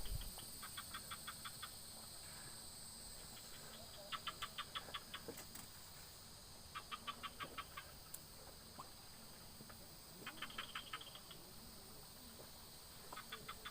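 A small animal calling in short bouts of rapid chirps, about eight a second, each bout lasting about a second and repeating every few seconds.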